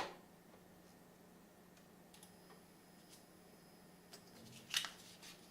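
Two sharp clicks, one at the start and one near the end, over a faint steady hum.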